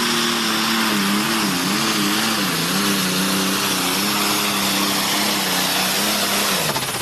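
Diesel pulling tractor's engine running flat out under load, with black smoke pouring from the stack. The engine note wavers and dips in pitch several times a second or two in, then holds steady.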